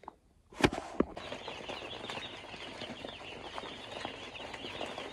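A brooder full of baby chicks peeping together: a dense, continuous chorus of many short high peeps. It starts about a second in, just after a sharp click.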